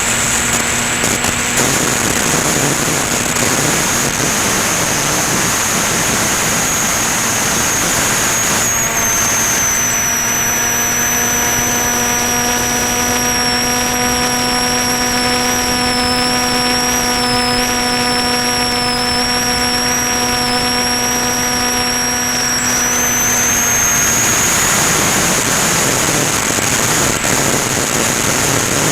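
Ranger EX model plane's electric motor and propeller whining in flight over a steady rush of air. About nine seconds in, a buzzing note with several overtones sets in and the high whine drops slightly in pitch, and both return to the earlier sound near the end as the motor speed changes.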